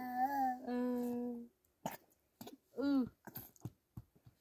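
A voice humming one long, steady note for about a second and a half, then a short call that rises and falls in pitch about three seconds in, with a few light clicks.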